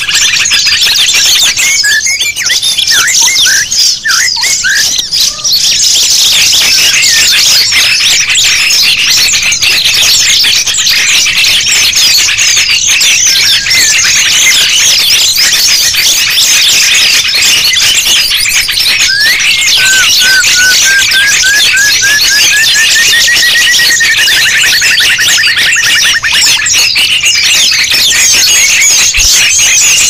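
Mixed-species bird-lure recording: many small songbirds chirping and calling at once in a dense, high-pitched chorus. About two-thirds of the way in, one bird gives a run of short notes climbing in pitch that turns into a fast falling trill.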